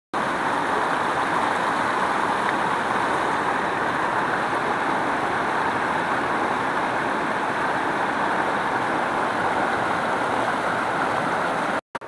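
Stream water rushing over a small rocky cascade, heard close up as a loud, steady rush that cuts off suddenly just before the end.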